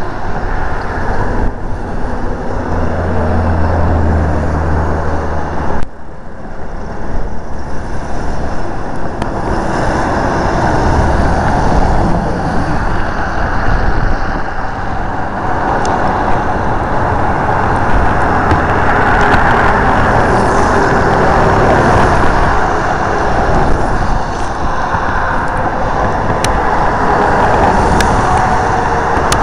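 Steady road traffic noise, with a low engine drone from a passing vehicle in the first few seconds.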